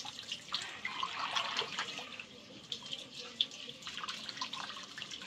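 Wet, irregular squelching and splashing of a hand kneading and squeezing a ground rice-and-cacao horchata mash inside a cloth strainer, with liquid dripping through the cloth.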